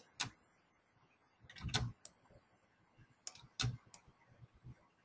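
Scattered sharp clicks and taps of a computer mouse and keyboard, a few in quick clusters, with quiet between.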